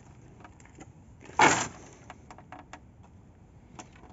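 Wooden pallets giving one loud, short crack or clatter about a second and a half in, followed by a few faint clicks and knocks as the boards shift.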